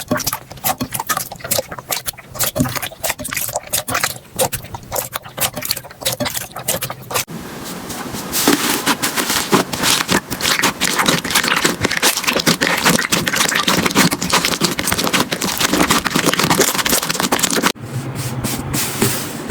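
Slime being squeezed and worked by hand, making dense, rapid crackling and popping clicks. The texture changes abruptly about seven seconds in to a louder, denser crackle, and changes again near the end.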